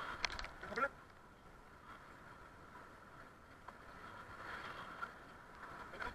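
Faint, fast-forwarded riding noise from a bicycle-mounted camera, a steady hiss of wind and rolling tyres. In the first second there is a brief high, chirpy sound that falls in pitch.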